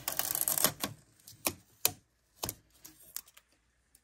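Packing tape being peeled off the plastic interior of an inkjet printer: a short rasping rip, then a few sharp, separate plastic clicks and taps.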